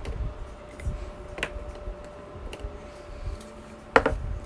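Light clicks and taps of trading cards being handled and set up on a display stand, with a sharper click about a second and a half in and a louder one near the end, over a faint steady hum.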